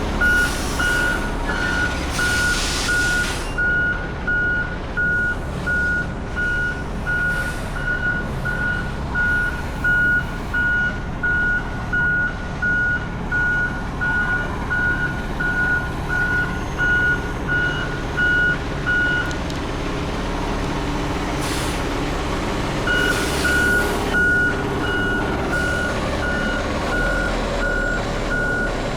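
Concrete mixer truck's diesel engine running while its reversing alarm beeps steadily, about one and a half beeps a second; the beeping stops for a few seconds after about 19 seconds, then starts again. Short hisses of air are heard near the start and again as the beeping resumes.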